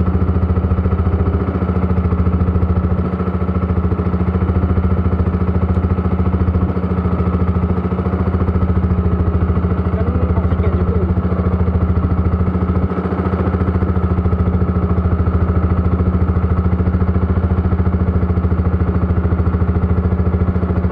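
Small boat's engine running steadily at an even speed, with a constant low hum.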